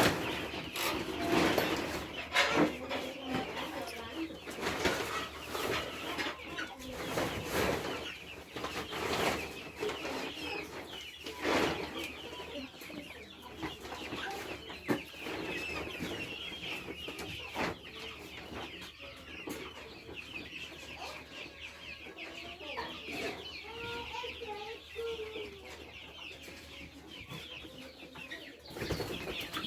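A flock of six-week-old chickens clucking and cheeping continuously, with many short high calls, some lower calls about three-quarters of the way through, and scattered knocks and rustles, busiest in the first few seconds.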